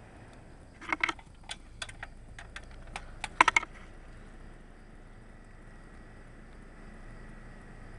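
A scatter of sharp clicks and snaps as the metal tips of test probes fed from a computer power supply touch the terminals of a AAA battery. The loudest burst comes about three and a half seconds in, then only a faint steady background noise.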